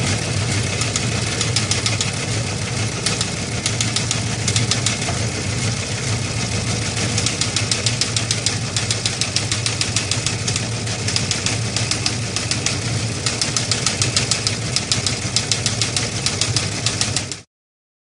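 Fast, steady mechanical clatter over a low hum, cutting off abruptly near the end.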